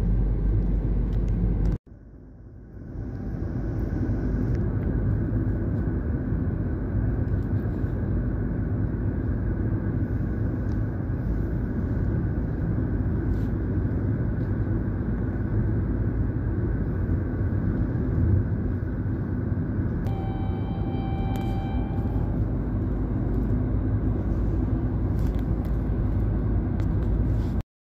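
Steady rumble of a moving vehicle heard from inside, with road and wind noise. The sound drops out briefly near the start and fades back in. About two-thirds of the way through, a horn sounds once for about two seconds.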